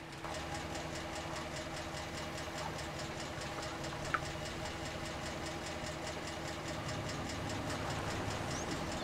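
An engine idling steadily, with a fast, even ticking.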